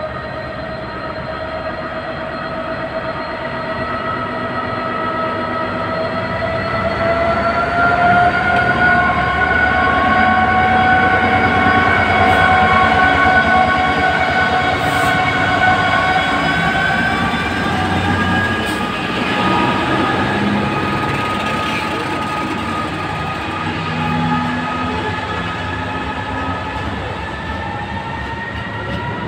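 Class 66 diesel locomotive passing at the head of a freight train: its EMD two-stroke V12 engine running with a steady whine of several tones that rises slightly in pitch over the first ten seconds. It is loudest as the cab passes, about a third of the way in, with the wagons rumbling along behind.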